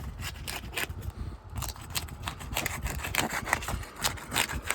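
A flat roofing tool scraping and rasping under brittle asphalt 3-tab shingles in short repeated strokes, breaking the shingles' adhesive seal strips so the nails can be reached. The strokes come more often from about a second and a half in.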